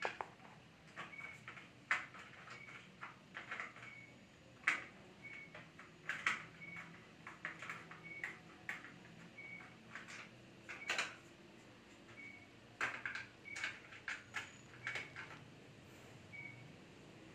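Irregular clicks and knocks of a hand tool working on the fittings and plastic housing of a wall-mounted electric instant shower heater being taken apart. Short high chirps recur about once a second in between.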